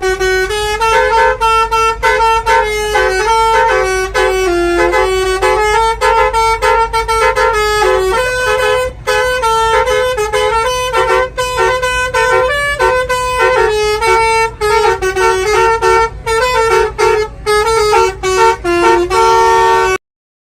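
Basuri telolet bus horn playing a fast, loud multi-note melody, the tones changing every fraction of a second; it cuts off abruptly near the end.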